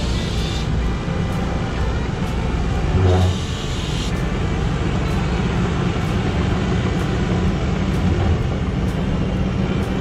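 Heavy diesel machinery running steadily: a tracked bulldozer and a semi truck pulling a bottom-dump gravel trailer. About three seconds in there is a brief louder swell.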